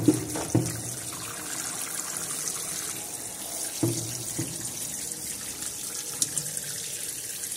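Tap water running steadily into a salon hair-washing basin, with splashing as a mixture is poured from a glass bowl over wet hair.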